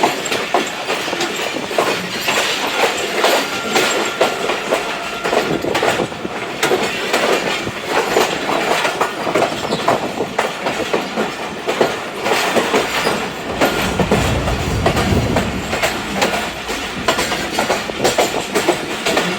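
Passenger train's wheels clattering over the rail joints in a fast, irregular clickety-clack as the train runs along the track, with a deeper rumble for a couple of seconds about two-thirds of the way through.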